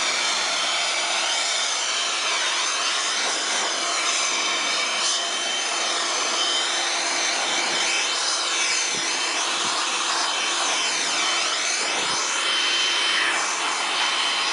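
Handheld leaf blower running steadily, a rush of air with a whine through it, blowing water off a freshly washed truck. Its tone wavers as the nozzle is moved over the bodywork.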